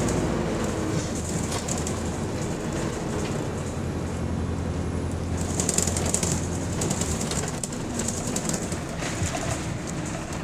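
Alexander Dennis MMC bus on the move, heard from inside the saloon: a steady low engine drone under road noise, with frequent rattles from the interior fittings.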